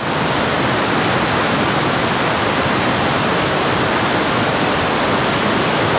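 Fast-flowing floodwater rushing through a street: a loud, steady wash of water noise.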